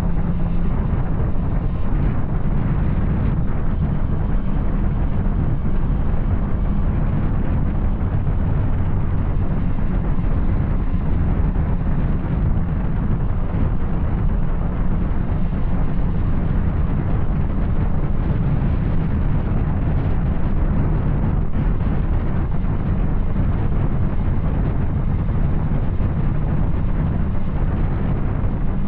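Yamaha Tracer 900's three-cylinder engine running steadily through an Arrow aftermarket exhaust on the move, a continuous low rumble.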